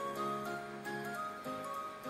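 Background music: a melody of held notes that change every few tenths of a second.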